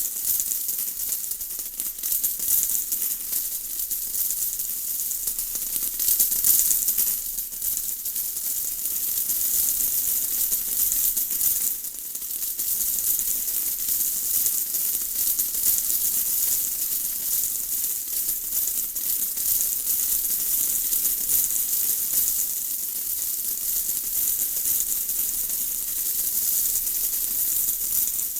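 Steady rain falling: a dense, high hiss of many fine drops that swells slightly now and then.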